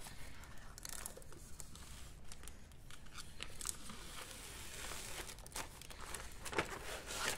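Thin protective plastic film being peeled off an LED light pad, crinkling and rustling with small crackles, the sharpest near the end.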